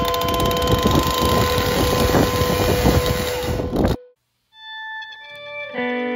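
A cordless chainsaw cutting into a box spring, a harsh rattling noise over a steady tone from the background music. It cuts off suddenly about four seconds in, and after a moment of silence guitar music begins.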